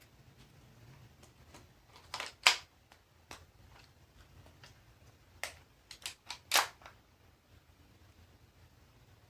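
Tokyo Marui H&K MP7A1 gas blowback airsoft gun firing single shots: two loud sharp reports about four seconds apart, with lighter clicks and clacks around them.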